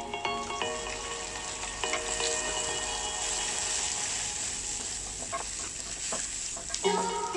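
Food sizzling in hot oil in a pan, a steady crackling hiss that is loudest in the middle, with light background music over the start and end.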